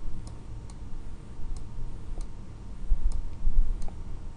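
Computer mouse button clicking: about six short, sharp clicks spread unevenly over a few seconds, one for each pen stroke as letters and a line are drawn by hand. Some dull low bumps sit underneath.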